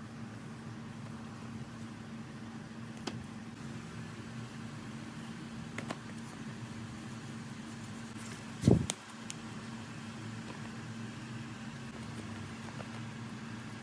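A steady low hum throughout, with a few faint clicks of small metal lathe parts being handled and one dull thump near the middle.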